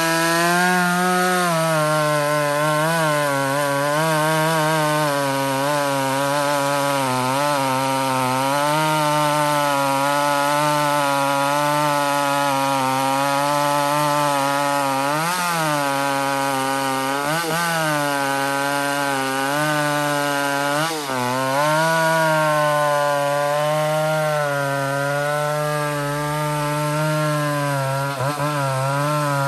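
McCulloch 850 two-stroke chainsaw running at full throttle in a cut through a large log. Its pitch dips briefly a few times, about halfway through and again a little later, as the chain loads in the wood.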